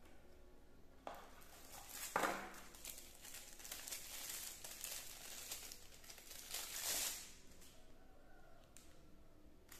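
Thin plastic packaging crinkling as a clear phone case is handled and slid out of its plastic sleeve. The rustling is loudest about two seconds in and again near seven seconds.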